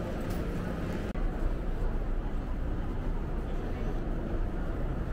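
Steady low rumble of vehicle and city background noise.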